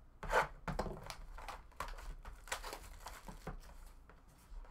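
Hands opening a Topps Tier One baseball card box: cardboard and wrapping rustling and crinkling in a string of short scrapes, loudest about half a second in.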